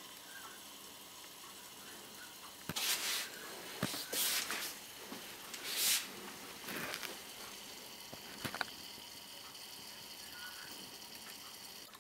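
Miniature home still distilling wine: a steady faint hiss with three short, louder rushes of hissing liquid noise about three, four and six seconds in, and a few sharp clicks.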